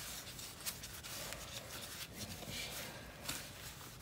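Microfiber towel rubbing over a small forged carbon fiber trim piece, wiping off sprayed-on paint prep cleaner: soft, irregular rubbing strokes.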